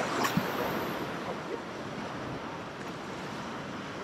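Ocean swell surging and washing white water against a sea-rock ledge as a steady rushing noise, with a louder rush of water about the first second.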